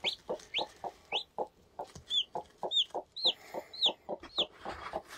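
A broody mother hen clucking in a steady run of short low clucks, several a second, while newly hatched chicks peep about ten times in high, quick chirps that rise or arch in pitch.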